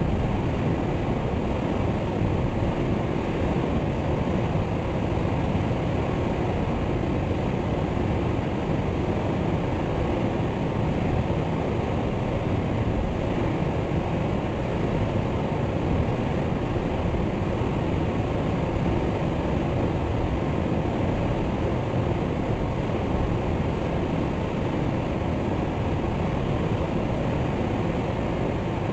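Waterfall: water falling and rushing in a steady, deep roar with no breaks.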